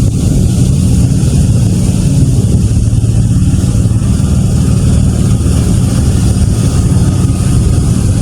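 Steady, loud low rumble of a running vehicle engine, unchanging in pitch throughout.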